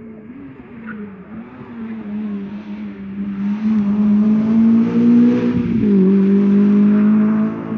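Rally car engine revving hard as the car approaches and passes, climbing in pitch and growing loud, with one upshift (a sudden drop in pitch) about six seconds in.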